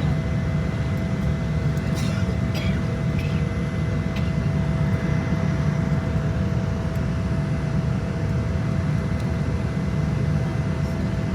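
Airplane engines and airflow making a steady low drone, with a faint steady whine above it and no build-up in level. A few faint clicks come about two seconds in.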